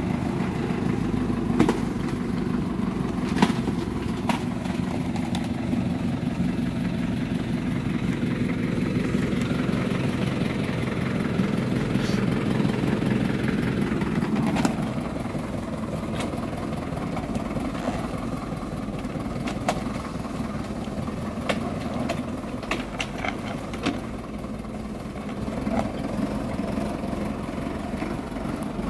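Farm tractor's diesel engine running steadily under load as it pulls a disc plough through mud and stones, with occasional short knocks.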